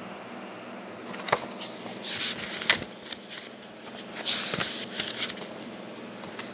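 Paper rustling as a book and its packaging are handled, in two bursts about two and four seconds in, with a few sharp knocks. A steady background hum runs underneath.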